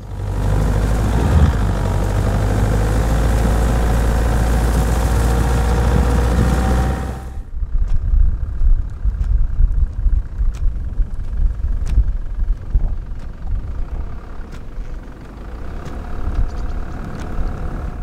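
A motor vehicle's engine running steadily for about seven seconds, then cutting off sharply into a quieter low rumble with scattered clicks.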